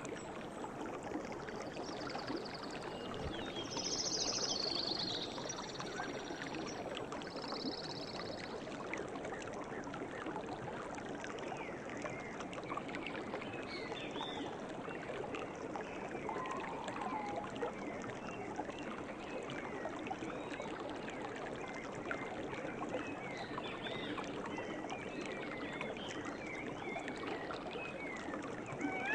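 River water flowing steadily, with small birds chirping over it; the chirps grow more frequent in the second half, and a couple of higher trills sound near the start.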